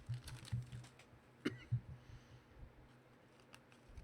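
Faint light clicks and taps of trading cards and packs being handled and set down, over a low steady hum, with one sharper click about a second and a half in.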